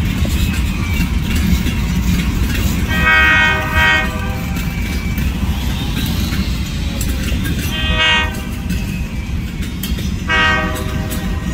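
Freight train's hopper cars rumbling past close by while the lead diesel locomotive, further up the line at a grade crossing, sounds its multi-note air horn in three blasts a few seconds apart, each about a second long.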